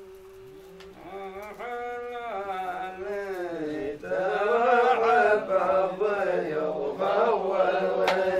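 A man's voice chanting Arabic poetry in a drawn-out melodic style. It starts on a long held note, then the melody rises and falls, and it grows louder from about four seconds in.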